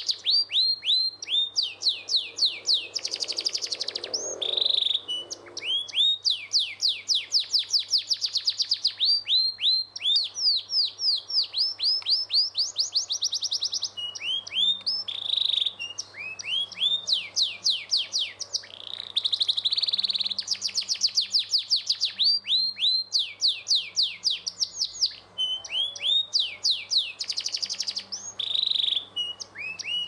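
Domestic canary singing a long, continuous song of rapid trills: runs of quickly repeated, falling notes, changing speed from phrase to phrase, with only brief breaks.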